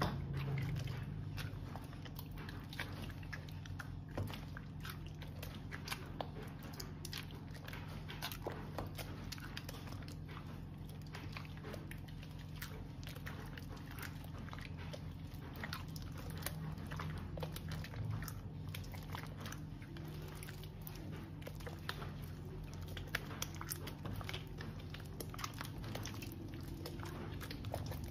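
Hands kneading and stretching a large wad of wet slime mixed with glitter and plastic charms: squelching with many small, irregular crackling clicks.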